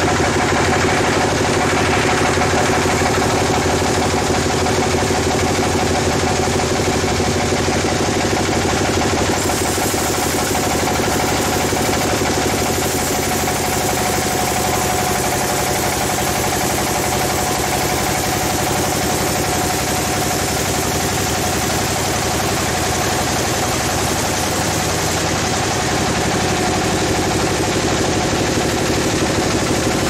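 Band sawmill machinery running steadily with a continuous droning hum and hiss. The sound grows harsher and brighter from about a third of the way in until near the end.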